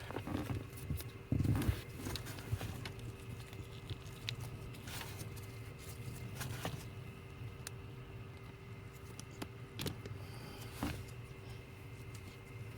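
Scattered small clicks and scrapes of needle-nose pliers working into a brittle plastic O2 sensor connector, over a faint steady hum.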